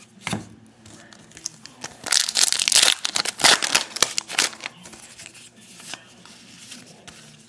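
Trading-card pack wrapper crinkling and tearing as it is opened, in loud crackly bursts between about two and four and a half seconds in, with lighter rustling of the wrapper and cards around them.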